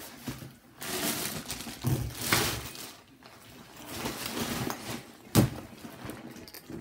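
A plastic zip bag of school supplies and other items rustling and crinkling as they are pushed into a fabric backpack, with one sharp knock about five seconds in.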